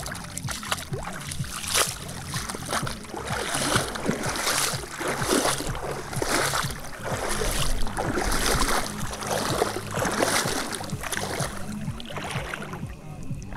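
River water splashing and rushing against a moving boat, in swells about once a second that ease off near the end.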